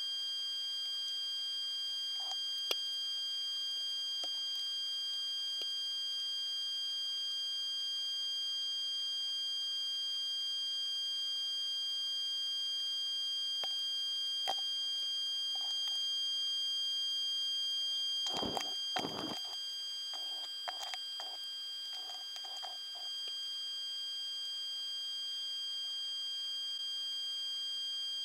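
Steady high-pitched electronic whine made of several constant tones over a faint hiss, with a few soft knocks and clicks a little past halfway.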